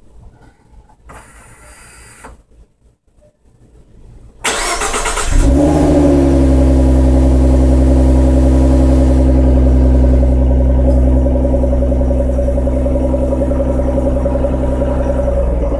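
2014 Ford Mustang V6's 3.7-litre engine through its stock exhaust, starting up. About four and a half seconds in the starter cranks briefly, the engine catches with a short flare of revs, then settles into a steady idle.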